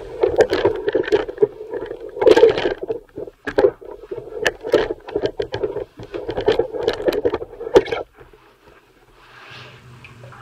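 Handling noise: the camera's microphone rubbing and scraping against a nylon jacket, an irregular scraping with many small knocks that stops about eight seconds in, leaving a faint low hum.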